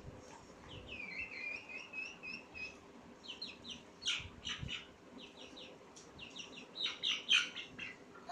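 Young chicken calling: one wavering high peep, then quick clusters of two to four short, high chirps.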